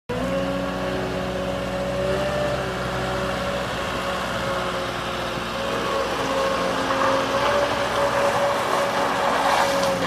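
Cat 262D skid steer's diesel engine running as the machine drives, with a steady high whine over the engine note. A rougher, louder noise builds over the last few seconds as it moves off.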